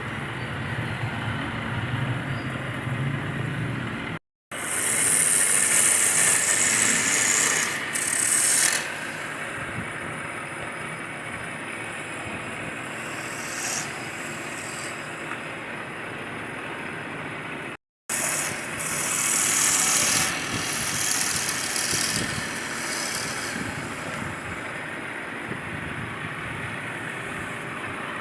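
Wood lathe running steadily, with a turning tool cutting into the spinning wood in two louder, hissing stretches. The sound drops out abruptly twice.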